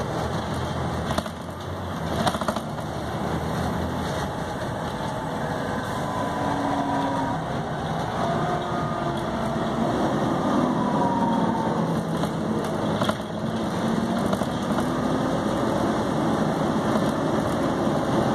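Volvo B7TL bus's 7.3-litre diesel engine running, its note rising and falling, with a few sharp knocks.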